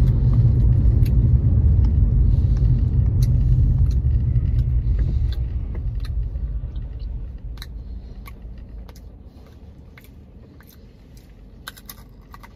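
Car road and engine rumble heard inside the cabin, loud and deep at first, then dying away to a much quieter hum about seven seconds in. Scattered faint clicks run through it.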